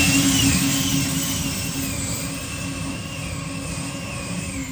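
Light modified pulling tractor powered by four turbine helicopter engines, running flat out under load as it drags the weight sled. It gives a wavering high whine over a low rumble, fading steadily as it moves off down the track.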